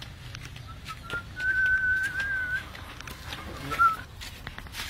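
A person whistling: one long, slightly wavering note starting about a second in, then a short note near the end, with a few light clicks.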